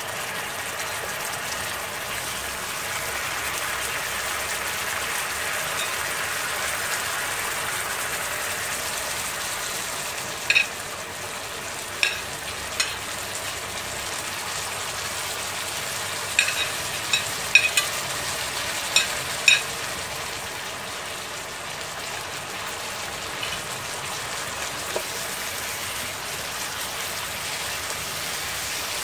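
Beef stir-frying in sauce in a nonstick wok: steady sizzling while a spatula stirs. A run of sharp taps comes in the middle as fresh chilies and basil are added.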